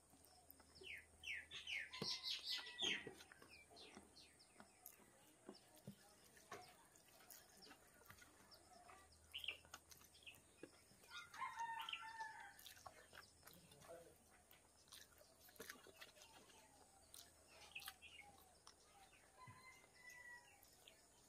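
Soft squishing and small clicks of a hand mixing rice into chicken curry on a steel plate, with faint bird calls in the background: a run of falling chirps about two seconds in and a longer pitched call near the middle.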